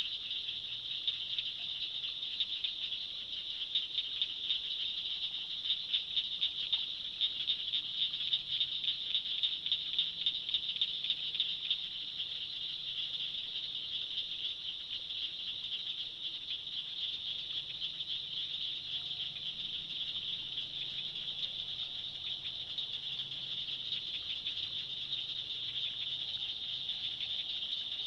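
Dense dusk chorus of calling insects over the swamp, a steady high-pitched pulsing trill. For several seconds in the first half it swells into a louder throb of about two beats a second.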